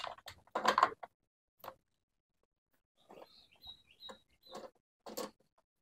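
Hand-tool work on a Honda Vario 125 scooter's plastic body around the seat, engine off: scattered clicks and knocks, with a short clatter about half a second in, then faint high chirps and small ticks.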